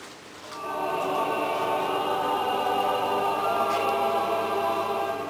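Church choir singing a sustained chord of several voices. It comes in about half a second in, swells, and is held steady.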